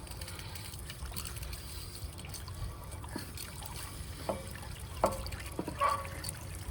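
Water draining out of a Suburban RV water heater tank, trickling and splashing steadily as sediment is flushed from the tank, with a few brief knocks or splashes near the middle.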